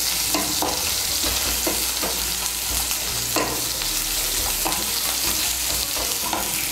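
Sliced onions sizzling in hot oil in a coated kadai as they fry toward browning, stirred with a spatula that scrapes and knocks against the pan every half second to a second.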